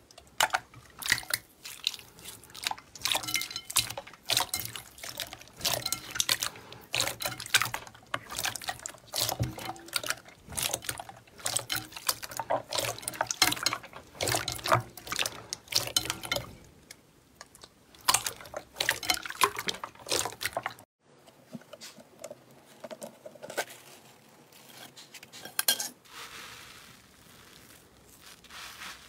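Slime being squished and worked by hand, a dense run of wet clicks and pops. About three quarters of the way through it cuts off abruptly, and quieter, softer squelching follows.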